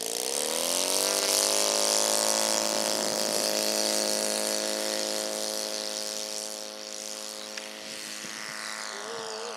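Radio-controlled scale model NDN Firecracker's motor and propeller on its takeoff run. The pitch rises over the first second as the throttle opens, then holds steady and loud, easing slightly in volume during the last few seconds as the plane moves away and lifts off.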